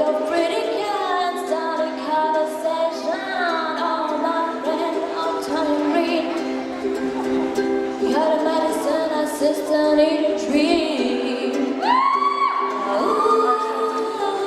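A woman singing over a strummed string-instrument accompaniment, with a long held note near the end.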